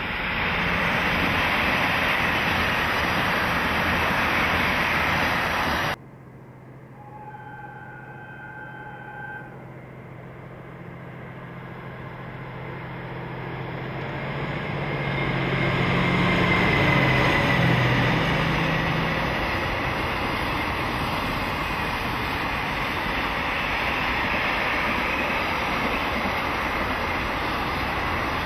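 A passenger train runs past with a steady rushing rumble, cut off abruptly about six seconds in. Then a distant train horn sounds once for about two seconds. A diesel freight locomotive approaches with its engine droning louder and passes, followed by container wagons rolling by.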